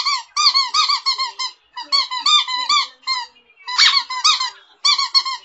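Rapid high-pitched squeaking in short bursts, several squeaks a second with brief gaps between bursts; the loudest burst comes about four seconds in.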